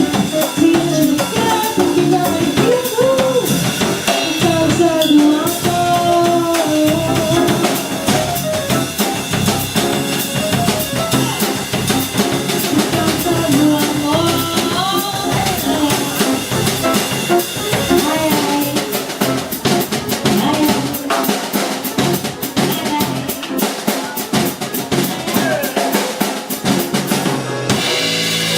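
Music played with a drum kit, snare and bass drum under a melody line. The drumming grows busier in the second half, and the music breaks off abruptly near the end, where a different passage begins.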